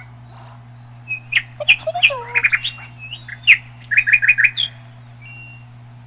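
Cockatiel chirping and whistling: a string of sharp calls and quick repeated notes from about a second in, then two short thin whistles near the end.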